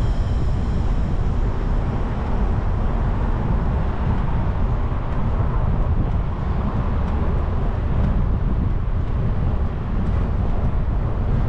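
Steady wind rumble on the microphone, mixed with tyre and road noise from a bicycle riding along.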